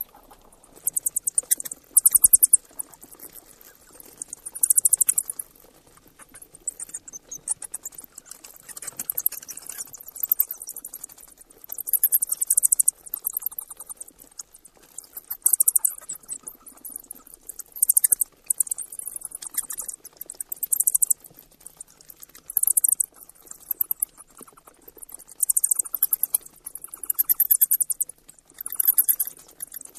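Bat chittering: bursts of rapid, high-pitched clicking trills, each about half a second to a second long, repeating at irregular intervals of one to three seconds.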